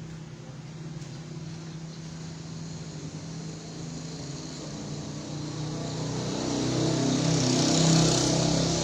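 A motor vehicle approaching and passing, growing louder to a peak near the end, over a steady low hum.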